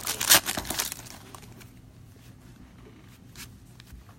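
Foil trading-card pack wrapper crinkling and tearing open for about the first second, then only soft handling with a few faint ticks.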